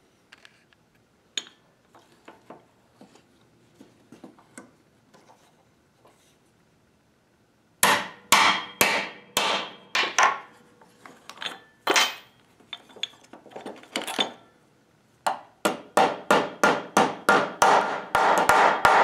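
Hammer driving steel hinge-type lacing into the end of a leather flat belt. Quiet handling clicks come first. Then, about 8 seconds in, sharp hammer strikes begin at a couple a second, quickening to a steady run of about three a second near the end.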